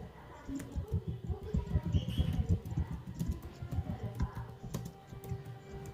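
Computer keyboard being typed on at a steady pace, a quick irregular run of key clicks during a typing test.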